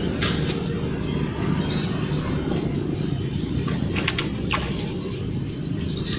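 A steady low rumble of open-air background noise, with a few faint, short bird chirps and several light clicks about four seconds in.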